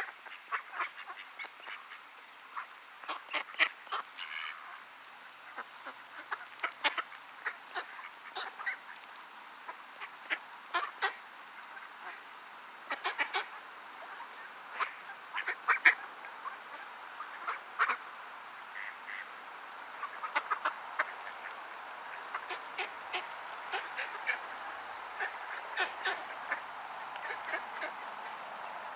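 Young mallard pecking and dabbling at dirt and gravel with its bill: a quick, irregular run of small sharp clicks and taps, sometimes in clusters of several.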